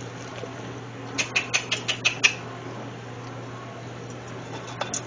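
Hush puppy batter frying in hot oil with a steady sizzle. A quick run of about seven sharp clicks comes about a second in, and two more near the end.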